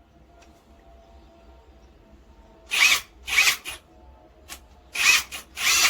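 A SILVEL cordless brushless 1/2-inch impact wrench running in short trigger bursts, about five of them, starting a little under halfway in. Each burst is a brief whine that bends in pitch.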